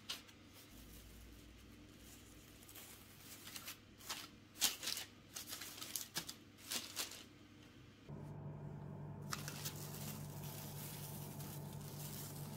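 Thin clear plastic crinkling and rustling in a run of sharp, crisp bursts as it is spread over balls of bread dough on a parchment-lined baking tray. About two-thirds of the way through, a steady low hum begins.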